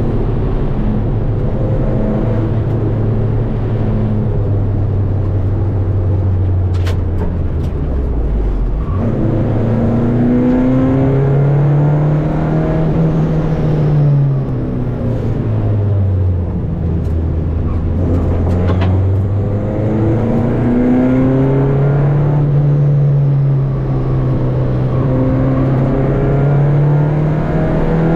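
Renault 5 GT Turbo rally car's turbocharged four-cylinder engine, heard from inside the cabin, driven hard on a stage: the engine note climbs under acceleration, drops at each gear change or lift for a corner, then climbs again, several times over. A couple of sharp clicks cut through, one about a third of the way in and one about two-thirds in.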